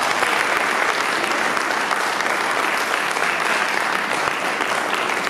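Audience applauding: many hands clapping together in a steady, even patter.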